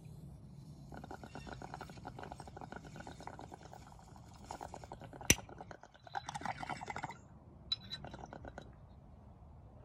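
Water in a glass bong bubbling rapidly as smoke is drawn through it during one long hit, lasting about six seconds with a brief pause near the end. There is a sharp click a little after five seconds and a few light clicks near the end.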